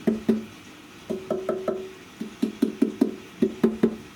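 Tapping on the plastic top housing of a Record Power DP16B bench drill: a string of short, hollow knocks, about four a second, in several runs. The hollow ring shows the part is plastic and not metal.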